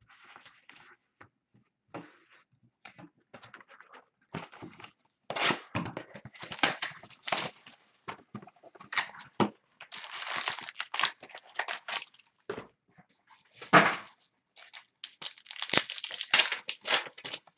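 Wrapper of a pack of basketball trading cards crinkling and tearing as it is opened by hand, in irregular rustling bursts that are loudest about fourteen seconds in and again near the end.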